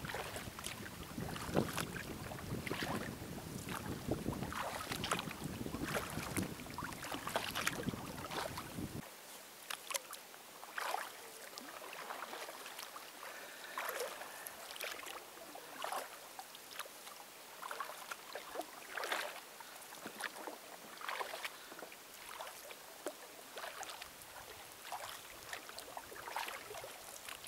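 Kayak paddle strokes splashing and dripping in the water, about one a second. Wind rumbles on the microphone for the first nine seconds or so, then stops abruptly, leaving only the paddle splashes.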